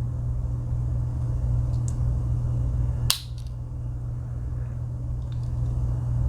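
Swiss Army knife being handled, with one sharp metal click about three seconds in and a couple of faint clicks, over a steady low hum.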